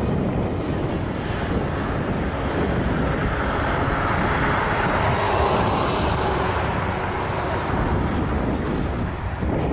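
Jet airliner engines with a rushing noise that swells to a peak about halfway through and then fades, as the aircraft passes, over a steady low rumble of wind on the microphone.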